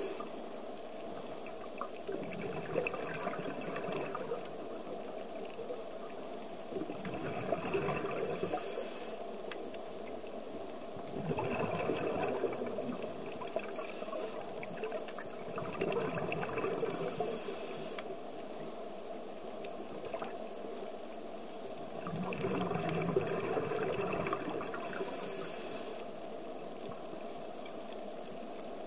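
Scuba diver's regulator breathing, recorded underwater through the camera housing: a short hiss on each inhale and a bubbling rush on each exhale. The breaths repeat about every eight to nine seconds.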